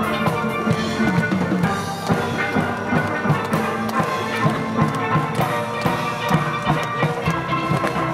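Steel band playing a lively tune: many steelpans ringing out notes over percussion keeping a steady beat.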